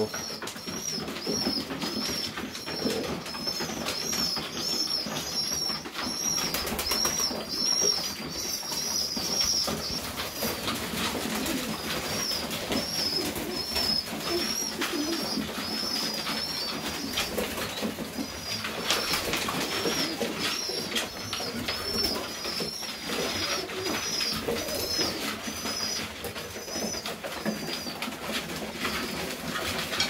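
Serbian Highflyer pigeons cooing, with a high chirp repeating about twice a second through most of it, pausing briefly now and then.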